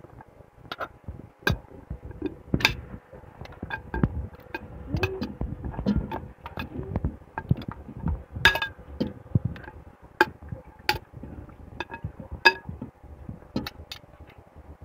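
Slotted metal spoon clinking and scraping against a metal strainer and a stainless steel pot as cooked meat is scooped into the pot. The clinks come irregularly, a few of them ringing briefly.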